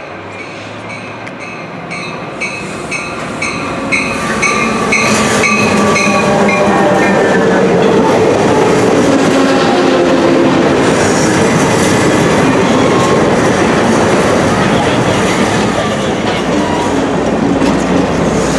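Piedmont passenger train passing close by behind its diesel locomotive. A bell rings about twice a second for the first several seconds. The passenger cars then roll past, louder and steady, with rumbling and wheel clatter on the curved track.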